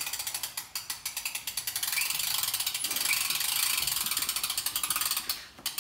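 A bow press's ratchet crank being worked, giving rapid, even ratchet clicking that stops briefly just before the end.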